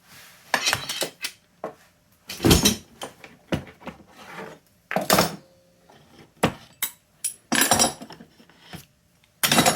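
Thin stainless steel sheet, hinges and a wooden board clattering and scraping in irregular bursts as the sheet is bent on an improvised door-hinge metal brake and handled, with about five louder clanks spread through.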